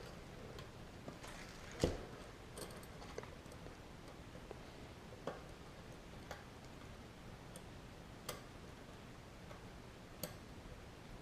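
A scattering of faint, irregular metal clicks, the loudest about two seconds in: bicycle cassette cogs and spacers being handled and slid onto the rear hub's freehub body.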